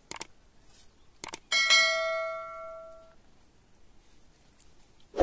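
A metal object struck once, ringing with a bell-like tone that fades over about a second and a half, after a few light clicks. A dull knock near the end.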